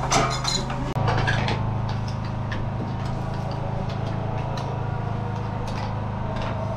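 A steady low machine hum, with scattered light clinks of china teapots and metal lids being handled and a spoon tapping a tin. A brief cluster of clinks and clatter comes in the first second.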